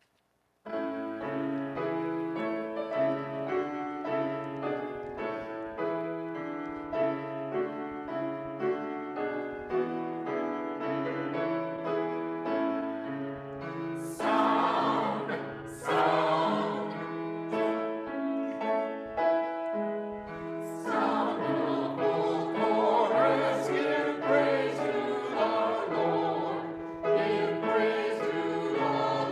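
A church choir singing a choral piece with accompaniment. The music starts about a second in, and the singing comes through fuller and louder from about halfway.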